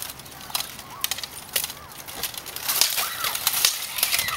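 Steel plate armour and swords clanking and rattling as two armoured fencers move and exchange blows: a string of sharp metallic clicks and knocks, thickest in the second half.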